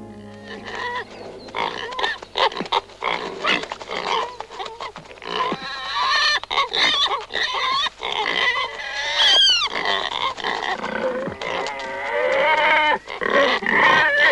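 A sow and piglets squealing and grunting: many short, irregular squeals in quick succession, a few sliding sharply down in pitch.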